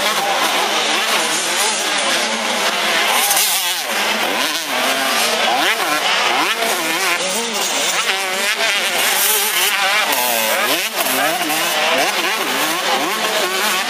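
85 cc two-stroke motocross bikes racing, their engines revving hard, with the pitch rising and falling again and again as several bikes overlap.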